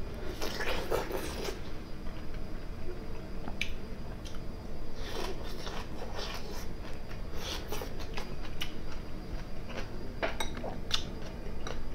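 Close-miked eating: a man biting and chewing food held in his hand, with a few sharp clicks of a metal spoon against a plate.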